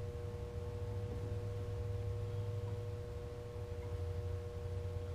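Steady background hum with a constant high tone over it, unchanging throughout; no distinct event.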